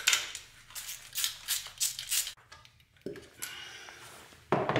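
Hand tool and engine parts clicking and rattling under the hood: a quick, irregular run of sharp clicks over the first two seconds, then quieter handling sounds.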